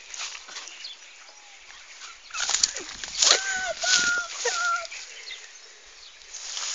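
Leafy crop plants rustling and crackling as they are trampled and handled, with three short, level-pitched calls a little past the middle.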